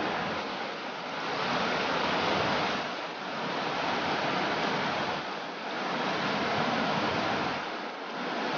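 Fast river water rushing through a rocky riffle of the North Umpqua River, a steady wash of noise that swells and eases every two or three seconds.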